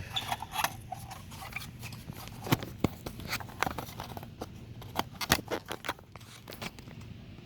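Small bolts and a screw being fitted and driven into a truck door panel by hand: irregular clicks, ticks and scrapes of a hand tool and metal fasteners, with a few sharper clicks about two and a half, three and five seconds in.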